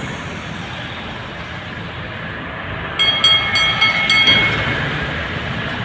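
Steady street traffic noise. About three seconds in, a high-pitched squeal with several steady tones and rapid clicking comes in for under two seconds, the loudest sound here.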